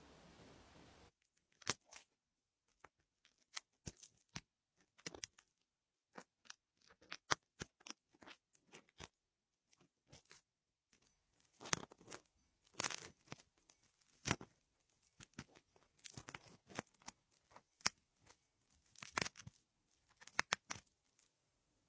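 An ear pick scraping and tapping inside an ear canal, heard close up: irregular dry crackles and clicks with silence between, sparse at first and coming in denser scratchy clusters in the second half.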